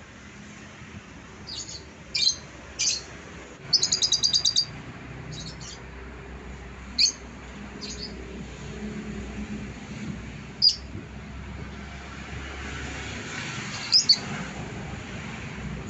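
Yellow lovebird giving short, high-pitched chirps, singly and in pairs, with a fast run of about eight chirps about four seconds in.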